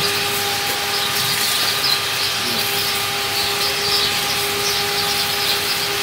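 Steady mechanical hum holding one pitch, over an even hiss of outdoor noise with faint high chirps scattered through it.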